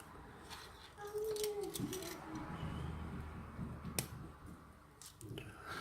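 Quiet small clicks and taps of lock tools and parts being handled, with one sharper click about four seconds in. A faint held tone drops in pitch about two seconds in.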